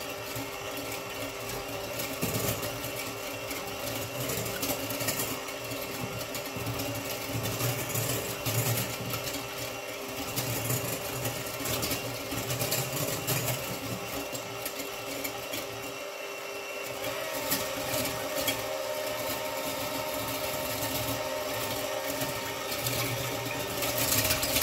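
Electric hand mixer running steadily, its beaters whisking a thin liquid cake batter in a glass bowl.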